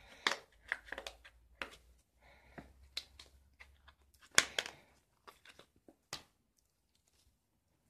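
Small plastic zip coin bags crinkling and rustling as gloved hands open and handle them: a quick run of short crackles that thins out after about five seconds.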